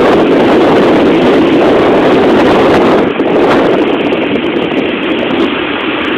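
Steady rush of wind and road noise heard from inside a moving vehicle, a little louder for the first three seconds.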